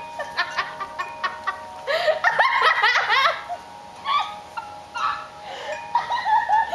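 High-pitched laughter and squealing in repeated cackling bursts.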